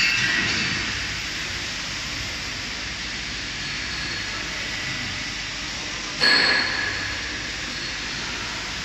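Steady industrial hall noise, a constant even rush of machinery, with a sudden metallic clank about six seconds in that rings briefly.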